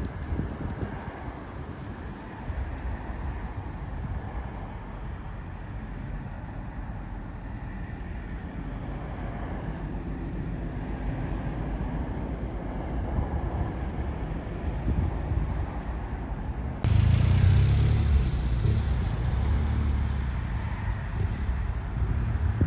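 Steady low rumble of engines outdoors, with wind on the microphone. It jumps abruptly louder and deeper about 17 seconds in.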